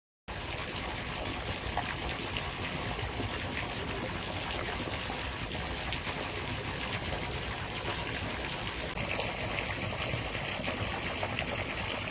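Steady rush of gushing water, starting abruptly just after the opening and holding even throughout, with a few faint clicks.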